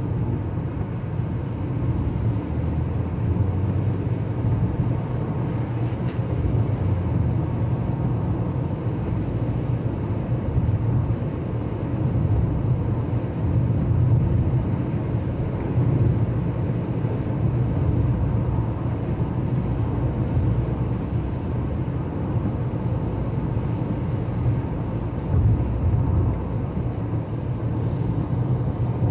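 Steady low rumble of a car driving on a wet highway, heard from inside the cabin: engine and tyre noise on the wet road.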